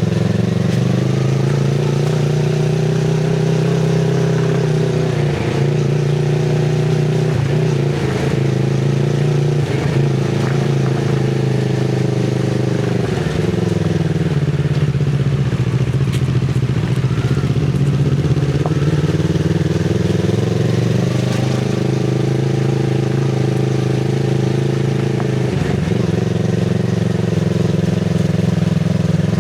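2024 Kawasaki Z650RS parallel-twin engine breathing through an IXIL MK2 full exhaust with its dB killer fitted, running at low trail speed. The engine note holds steady, its revs dropping and picking up again around the middle and once more briefly near the end.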